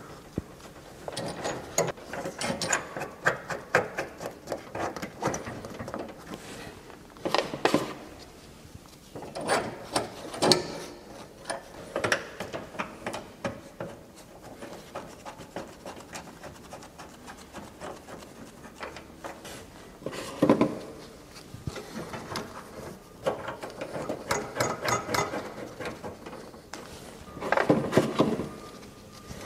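Pipe union nuts being screwed by gloved hand onto a combi boiler's brass isolation valves: scattered metal clicks and rubbing, with several runs of quick clicking, the loudest near the end.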